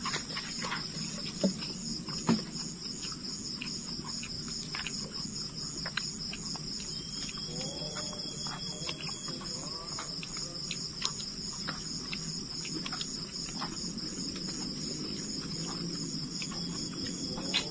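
Chorus of night insects chirping in a steady, fast pulsing trill, with scattered small clicks and taps of hands and utensils on plastic plates.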